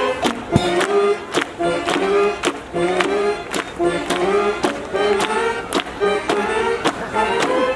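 Street brass band playing a horn melody over a steady drum beat.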